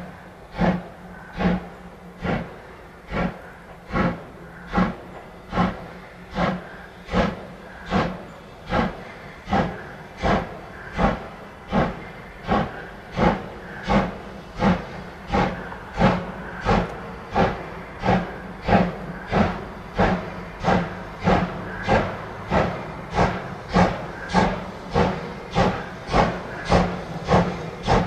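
Double-headed steam locomotives 41 1144 and 95 1027 working hard with a heavy gravel train. Their exhaust beats are loud and evenly spaced, slowly picking up pace and growing louder as the engines draw nearer.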